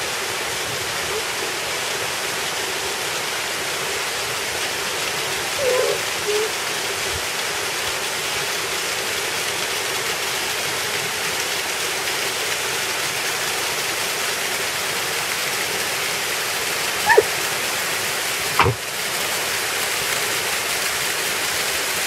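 Small waterfall running in thin streams over mossy rock: a steady, even rush of water, with one sharp knock near the end.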